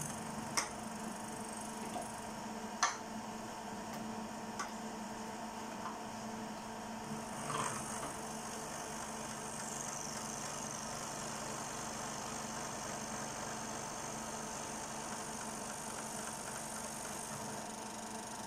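Milling machine spindle running with a steady hum, with a few sharp clicks in the first few seconds. From about eight seconds in, a high hiss joins it as the end mill cuts along the 45-degree angled face of the metal part.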